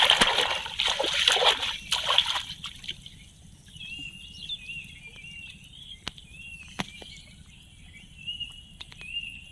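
Water splashing and sloshing, loud for the first two seconds or so and then dying away. After that, a faint, repeated, high chirping call and a few sharp clicks.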